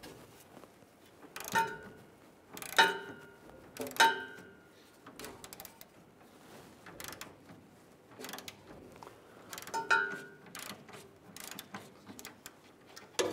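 Metal clinks and ticks of a 15 mm socket and ratchet working the nuts off a steel bump stop bracket: three sharp ringing clinks about a second apart, another some seconds later, with lighter clicks between.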